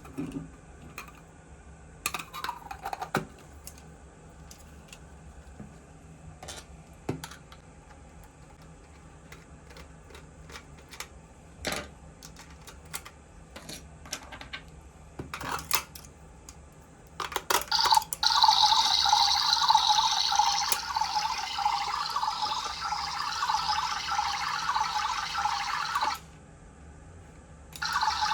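Small clicks and knocks of plastic being handled, then a steady stream of running water starting about two-thirds of the way in. The stream stops briefly near the end and starts again.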